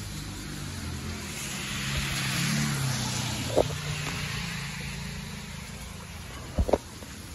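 A car passing on the rain-wet street, its tyre hiss on the wet road swelling and fading over a few seconds, over steady rainfall. A sharp knock about halfway through and two more close together near the end.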